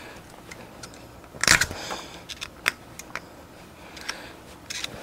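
A screwdriver pressing a snap ring onto the inner axle stub of a Dana 60 front hub, metal against metal: one short, louder scrape about a second and a half in, then a few light clicks.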